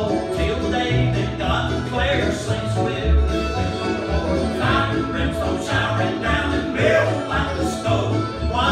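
Male vocal quartet singing an old-time country gospel song in close harmony, with bluegrass-style string accompaniment and a walking bass.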